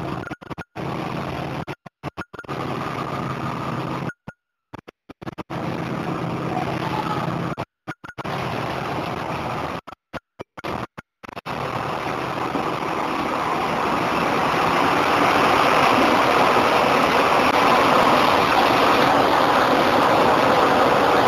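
Diesel bus engine idling, heard from inside the bus, with the sound cutting out completely in several short gaps. About halfway through, a louder steady din of idling bus engines in the terminus builds up and takes over.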